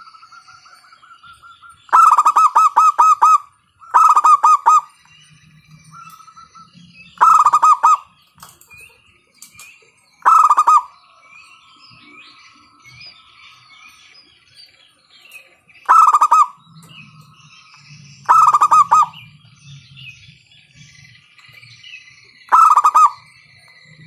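Zebra dove (perkutut) cooing loudly, in seven short bursts of rapid pulsed notes a few seconds apart, with faint chirping between them.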